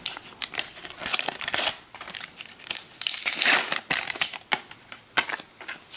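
Plastic wrapper of a Panini sticker packet being torn open and crinkled by hand: irregular crackling, with two louder rustling swells about a second in and about three seconds in.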